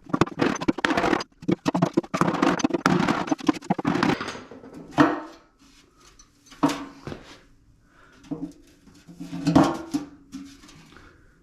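Hammer blows knocking dents out of the metal forge shell: a fast flurry of strikes for about four seconds, then a few single, spaced-out blows.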